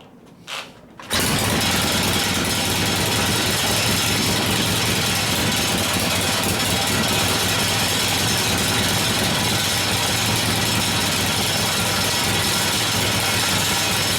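1972 Harley-Davidson Ironhead Sportster V-twin catching on a kick start about a second in, then running loud and steady through short open pipes. The short pipes leave it sounding rough, "like crap".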